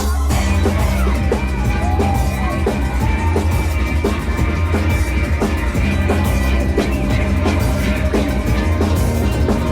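Live rock band playing loud: a drum kit keeps a steady beat over heavy bass, with the full band coming in right at the start.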